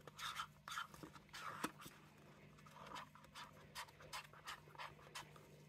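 Faint, irregular scratching and light tapping from a plastic mixing cup being tipped and scraped as the last of the epoxy resin is poured out into the moulds.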